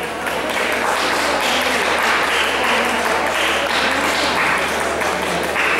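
Spectators applauding with steady clapping.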